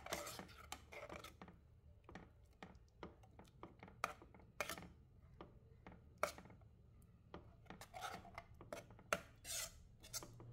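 Spatula scraping and knocking against a pan while stirring a thick curry: faint, irregular scrapes and light taps, a little louder a few times around the middle and near the end.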